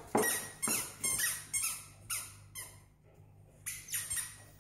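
Repeated short, high-pitched squeaks, about two a second with a brief pause around three seconds in, from a dog's squeaky toy ball being bitten.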